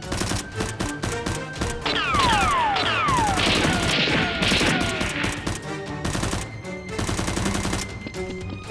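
Rapid bursts of gunfire over background music, with several falling whistling sweeps about two to three seconds in.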